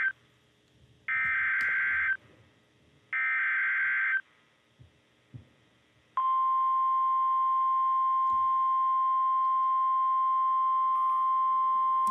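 NOAA Weather Radio alert signal: two one-second bursts of the SAME digital data header about a second apart, then, after a short pause, a steady single-pitch warning alarm tone that starts about six seconds in and holds. The header and tone announce that a new warning broadcast follows.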